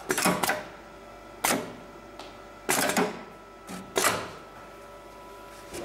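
HIGHTEX 7273 CNC automatic sewing machine between stitching runs: a series of sharp mechanical clicks and clunks, irregular and about a second apart, from its clamp and feed mechanism, over a faint steady machine hum.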